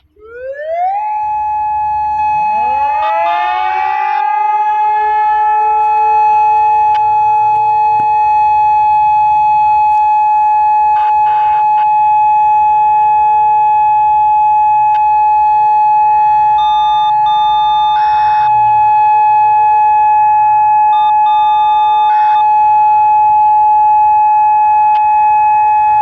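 Whelen WPS-2810 electronic outdoor warning siren starting up on its full-alert steady tone: it rises to one held pitch within about a second and stays there. A second, lower tone glides up more slowly a couple of seconds in and holds beneath it.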